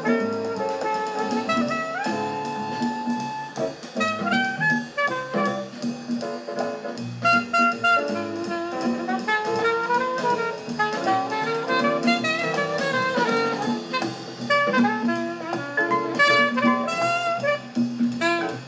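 Jazz record playing through the Retrolife UD006 all-in-one turntable's bookshelf speakers: a horn melody of held and sliding notes over bass and drum kit.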